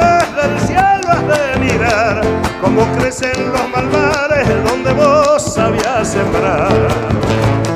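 Argentine folk band playing an instrumental passage between sung verses: violins with wavering vibrato lines over strummed guitars and a steady rhythmic beat.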